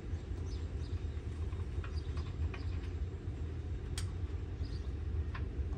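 A steady low rumble with a few light metallic clicks, the sharpest about four seconds in, as washers and bolts are handled and fitted on a steel mower deck.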